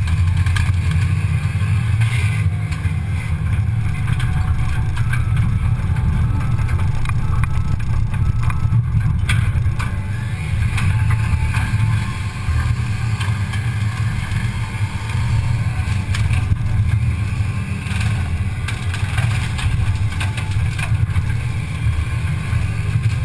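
Cat 320 excavator's diesel engine and hydraulics running, a heavy, steady low rumble picked up through a camera mounted on the machine's front, with a few faint knocks.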